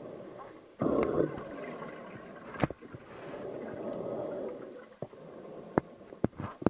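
Water gurgling and rushing in uneven surges, loudest about a second in, with a few sharp clicks near the end.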